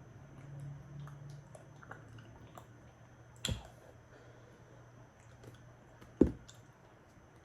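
Close-up eating of fresh raw oysters: chewing with small wet clicks throughout, and two sharp knocks about three and a half and six seconds in, the second the loudest.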